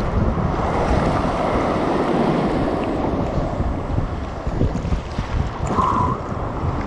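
Seawater sloshing and splashing around a waterproof action camera held at the surface in small surf waves, with a low churning rumble. There is a brief gurgle near the end.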